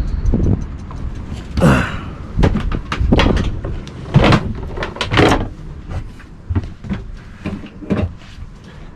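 A series of wooden knocks and bangs as a sailboat's cabin entrance is opened and handled, about six in all, each ringing briefly, the loudest about four and five seconds in.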